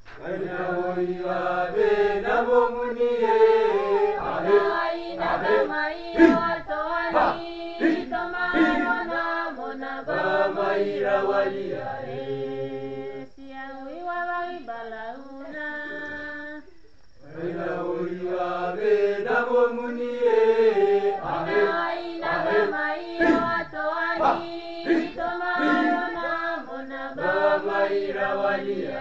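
Mixed-voice youth choir singing a Peroveta, a Papua New Guinean prophetic hymn, in several-part harmony. Just past halfway the singing thins to a quieter passage, then the full choir comes back in.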